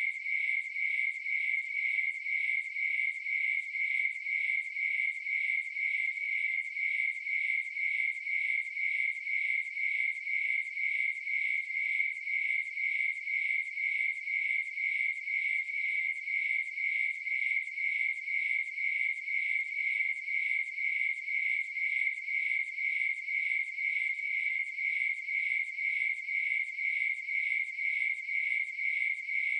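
Crickets chirping in a steady, even rhythm, one high-pitched repeating chirp with nothing else beneath it.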